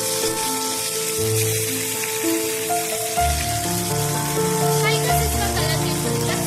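Chicken pieces frying in hot cooking oil, a steady sizzle, under background music of held notes.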